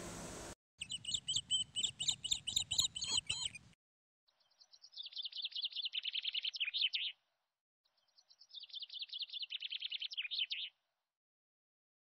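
Bird song: three bouts of rapid, high chirping trills, each about three seconds long, separated by dead silence.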